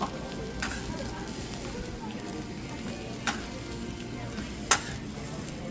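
Food sizzling as it fries on a hot pan, a steady hiss broken by three sharp clacks, the loudest near the end.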